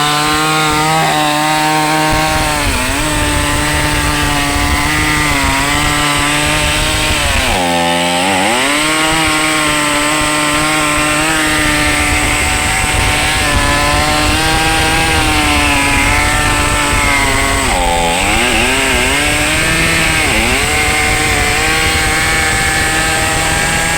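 Chainsaw engine running at high revs, a steady buzzing pitch that sags and picks back up twice, about a third and three quarters of the way through.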